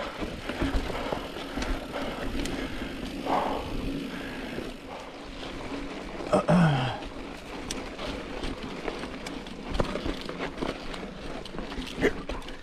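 YT Capra mountain bike climbing a rough, rocky dirt trail: tyres rolling and crunching over rock, with frequent short knocks and rattles from the bike. A short falling vocal sound from the rider comes about halfway through.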